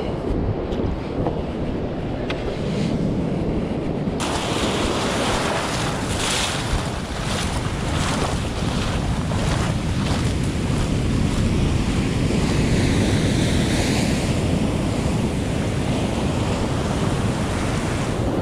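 Breaking surf and whitewater rushing, with wind buffeting the action camera's microphone. About four seconds in, the sound abruptly turns brighter and hissier.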